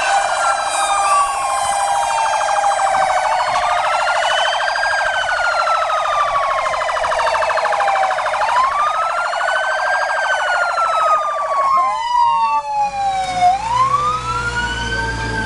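Fire truck siren wailing, rising quickly and falling slowly in pitch about every five seconds, as the truck drives up and passes close by. Its engine rumble joins in near the end as it goes past.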